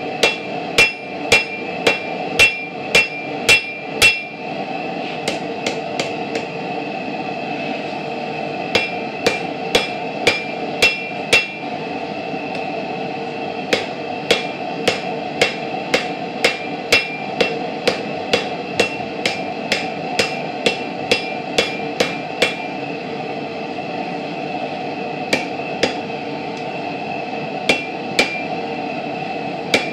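Hand hammer striking a red-hot railroad spike on an anvil, about two blows a second, each with a ringing note, in runs of several seconds broken by short pauses. The spike's end is being shaped into the eye of a bottle opener. A steady rushing noise runs underneath.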